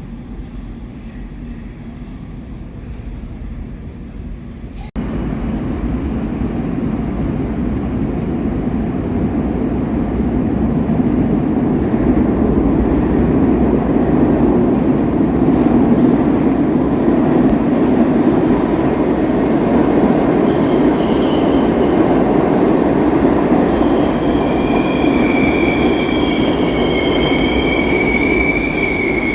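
An NYC subway train of SMEE cars running along the track with a steady rumble of wheels on rail. After a cut about five seconds in, the running noise is louder and builds. In the last several seconds a high, steady wheel squeal sets in.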